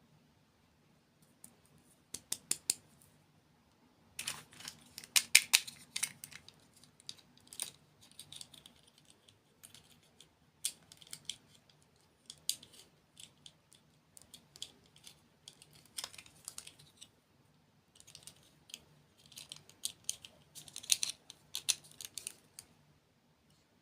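Close-miked crunching of sweets being bitten and chewed: irregular clusters of crisp cracks and clicks, with short pauses between bites. The biggest flurries come about four seconds in and again near the end.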